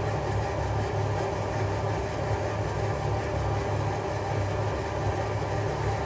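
A steady, unchanging machine hum with a low drone.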